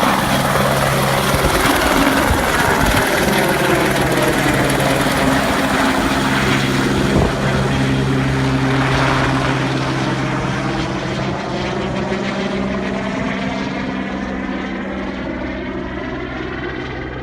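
Helicopter running steadily, a constant rotor hum under a wide rush of engine and air noise. Through the second half a phasing sweep runs through the sound as it slowly gets quieter and duller.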